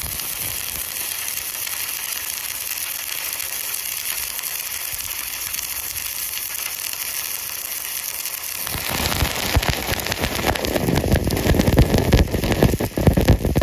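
Electric arc (stick) welding: a steady high sizzle, turning from about nine seconds in into a louder, rougher crackle with many sharp pops.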